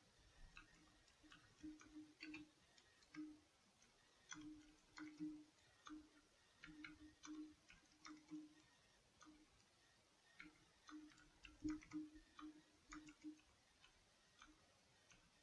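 Computer keyboard being typed on: faint, irregular key clicks in quick runs with brief pauses.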